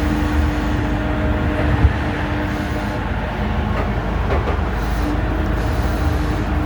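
Steady running rumble inside a moving train, with a steady hum that fades out for about two seconds midway and then returns. There is a brief knock about two seconds in.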